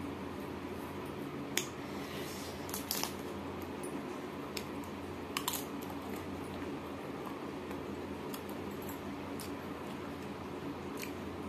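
Eating by hand: fingers squishing rice mixed with sinki (fermented radish) soup on a steel plate, and chewing, with a few small sharp clicks scattered through, over a steady low hum.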